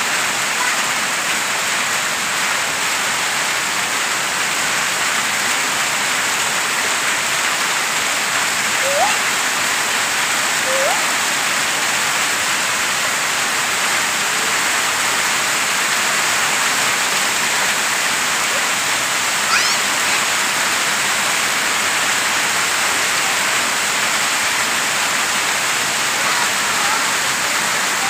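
Heavy rain pouring steadily onto wet concrete and puddled ground.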